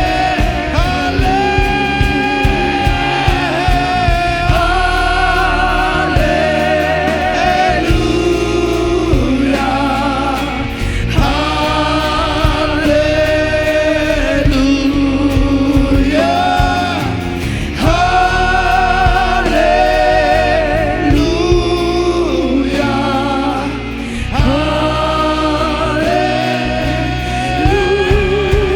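Live worship band music with several singers holding long, wavering notes over steady bass and drums, in a slow spontaneous-worship song.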